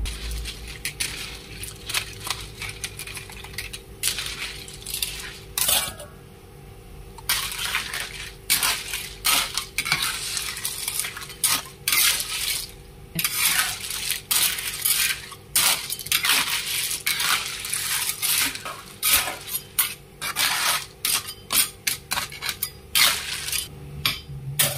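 Metal spoon and spatula stirring sea snails in their shells around a wok in sauce: irregular scraping against the pan with clinks and clatters of the shells, broken by a couple of short pauses.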